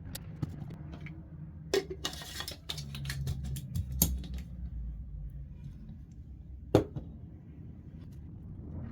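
Small hard parts being handled: a few sharp clicks and knocks, the loudest near the end, with a brief scraping rustle about two seconds in, over a low steady hum.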